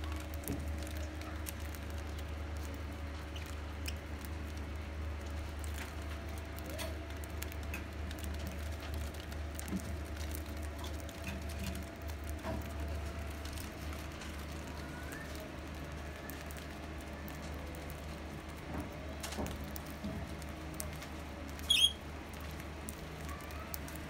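Budgies cracking and husking seed with their beaks: many small irregular clicks and ticks, over a steady low hum. A brief loud, high budgie chirp sounds near the end.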